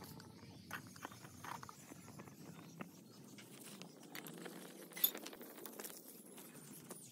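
Small wood fire in a mud stove crackling, with scattered sharp pops and one louder snap about five seconds in, over a low steady rush.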